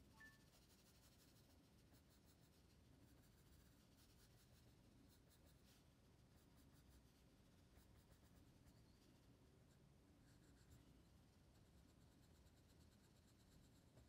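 Pencil scratching on paper: faint, quick, repeated strokes of hatching and shading.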